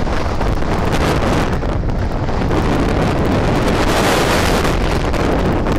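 Wind blowing hard across the microphone: a loud, steady rush of noise with a low rumble underneath.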